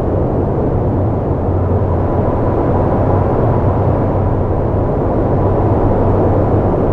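Steady, unbroken low roar of a volcanic eruption, the sound of lava fountaining and churning in an open crater.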